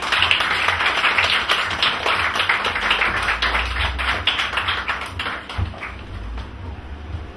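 A small audience clapping, individual hand claps audible, dying away about six seconds in.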